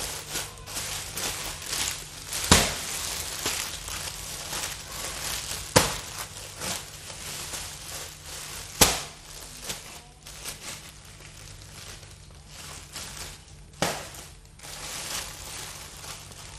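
Plastic-wrapped packs of foil and vinyl toy balloons rustling and crinkling as they are handled and sorted. Four sharp, louder crackles are spread through it.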